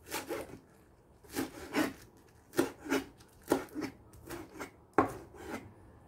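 Kitchen knife slicing through a bunch of green onions on a plastic cutting board: about a dozen crisp cuts, mostly in pairs, with the sharpest about five seconds in.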